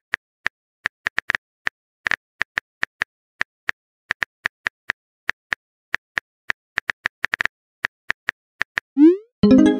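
Phone keyboard typing clicks from a texting app, irregular taps a few times a second. Near the end come a quick rising swoosh and a short chime as the text message is sent.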